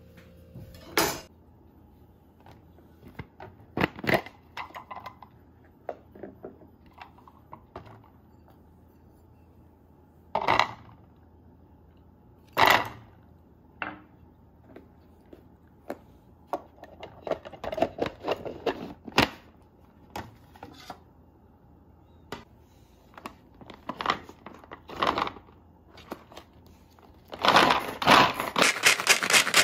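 Plastic clicks and knocks from a manual onion chopper being handled: the lid and bowl opened, onion pieces put in, and the lid fitted back on. In the last couple of seconds it is worked, its blades spinning through the onion pieces in a fast, even rattle.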